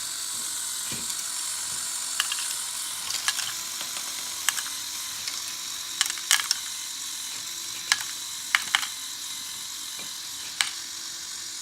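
Lego Technic bucket wheel excavator running on its battery-powered motor, with its plastic gears and bucket wheel turning with a steady whirr. Irregular sharp clicks and rattles come from the small Lego stones tipping from the buckets and dropping into the truck.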